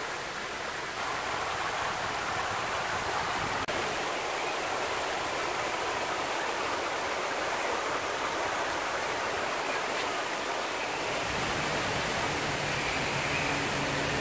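Rows of fountain jets spraying and splashing down into a wide basin: a steady rushing hiss of falling water.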